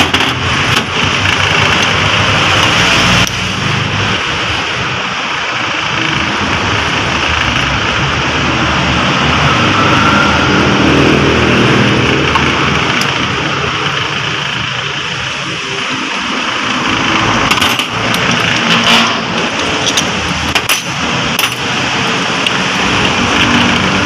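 A steady engine running, with a few sharp clicks and knocks in the later part.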